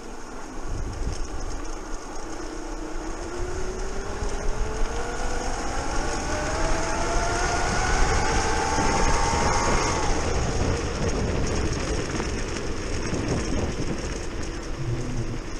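Modified electric scooter's brushless outrunner motor whining as it accelerates, the pitch rising steadily for about ten seconds and then dropping away as the power comes off. Wind and tyre rumble on the path run underneath.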